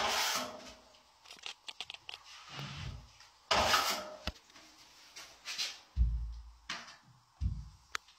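Irregular scraping swishes of a wide drywall skimming blade on a pole drawn over wet joint compound, smoothing a rolled-on skim coat for a level 5 finish. Scattered clicks and two heavy low thumps from handling come in the second half.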